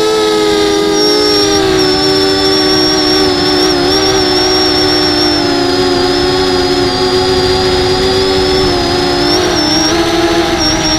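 250 mm FPV racing quadcopter in flight, its motors and propellers giving a loud, steady buzzing whine whose pitch wavers slightly with the throttle, over a thin high whine.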